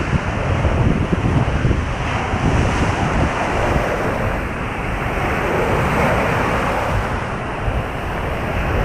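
Surf breaking and washing up the sand in a steady wash of white noise, with wind buffeting the microphone.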